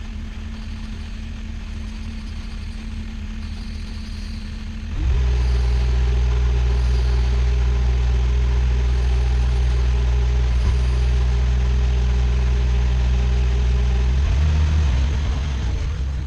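Bobcat skid steer engine running at a low idle, then throttled up sharply about five seconds in to a steady, much louder higher speed, held for about nine seconds before dropping back near the end.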